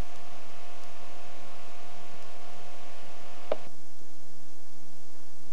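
Steady electrical hum and hiss from a videotape playing its blank lead-in. A brief chirp comes about three and a half seconds in, and after it the hiss thins out.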